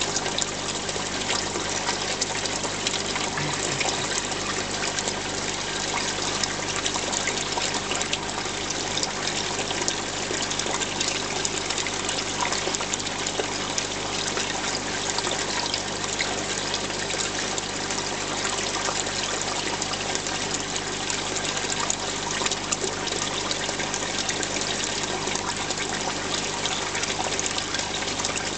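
Saltwater aquarium water circulating: a steady trickling and splashing of water at the surface, with a constant low hum beneath it from the tank's pump.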